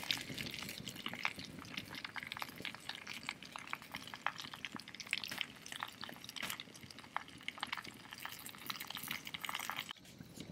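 Campfire burning damp wood: dense, irregular crackling and popping over a steady hiss. It cuts off abruptly near the end.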